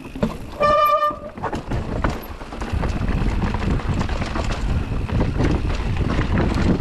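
Mountain bike riding down a rough trail: tyres running over dirt and rocks, the bike rattling with many small knocks, and wind on the microphone, all building from about a second and a half in. Just before that comes a brief high-pitched tone.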